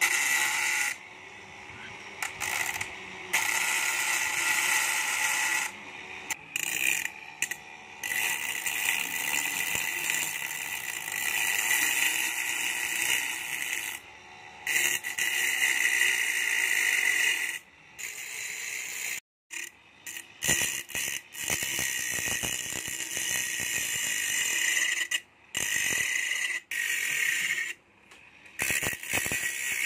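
Homemade mini angle grinder, a 775 DC motor spinning a small cutting disc, grinding through a thin iron rod with a steady high-pitched grinding whine. The sound breaks off abruptly and comes back several times.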